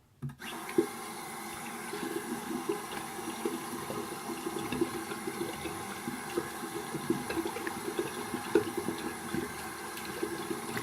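Tap water running steadily into a sink, turned on about half a second in, with irregular splashing as something is rinsed under the stream.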